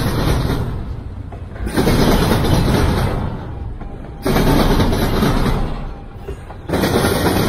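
Double-stack intermodal freight train of container well cars rolling past, the rumble and clatter of its wheels on the rails surging loud about every two and a half seconds and easing off between.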